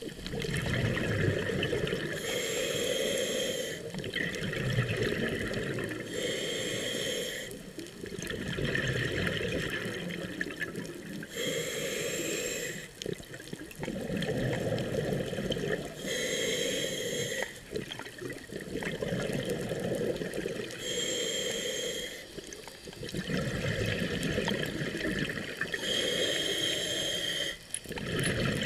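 A scuba diver breathing through a regulator underwater. Each breath is a hiss of inhaled air followed by a rumble of exhaled bubbles, repeating about every four to five seconds, six breaths in all.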